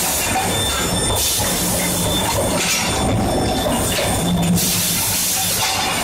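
Steady machine noise of a steel-billet induction heating forging line: low hum and rattling from the billet feeder and chain conveyor, with a thin, steady high-pitched tone throughout.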